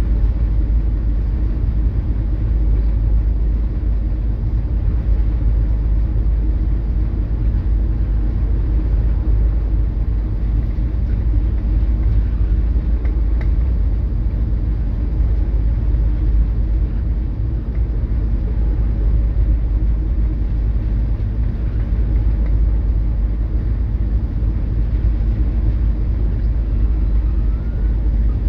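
Steady low drone of a coastal cargo ship's engine heard inside the wheelhouse while underway: a deep, even rumble with a steady hum above it.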